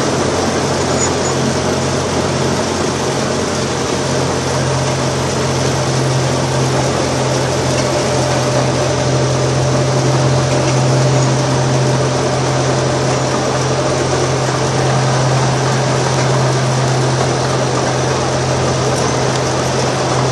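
Amusement park train ride in motion, heard from an open passenger car: a steady low hum under an even rushing noise.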